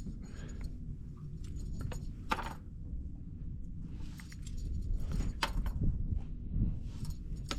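Wind rumbling on the microphone, with scattered light clicks and rattles that grow busier in the second half.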